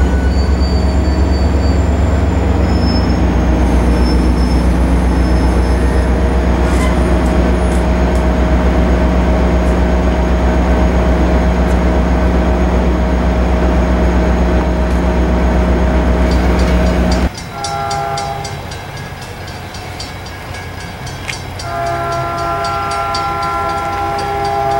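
A Caltrain diesel locomotive idling steadily with a deep, even rumble. It cuts off abruptly and is replaced by a distant approaching train: its multi-note horn gives a short blast, then a longer blast near the end.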